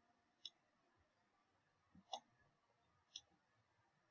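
Three faint computer mouse clicks over near-silent room tone.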